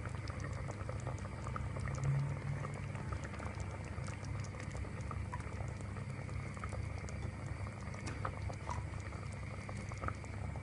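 Coconut-milk egg curry simmering in a pot, small bubbles popping and ticking steadily, with a brief low bump about two seconds in.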